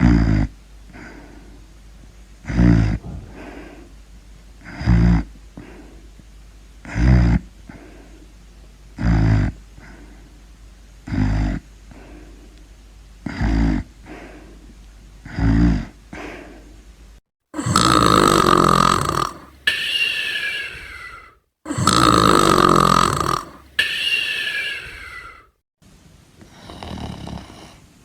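Snoring in a steady rhythm, a short snore about every two seconds, eight in a row. Then come two much louder, longer snores, each ending in a falling whistle.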